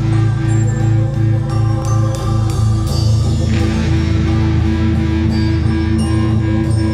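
Background music: a guitar-led track with held notes and a steady beat.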